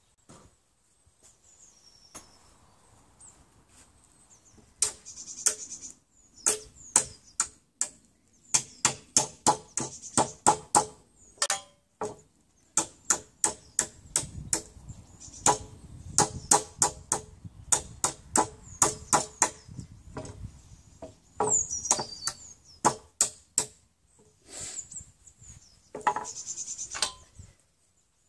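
Hammer blows on a wooden beam, coming in quick irregular runs of sharp knocks, with a high falling squeak now and then, as nails are knocked and pried out of the salvaged timber.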